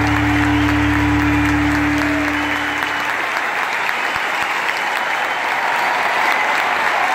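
A large audience applauding a live show. At first a final held chord of the music sounds under the clapping, and it ends about three seconds in, leaving only the applause.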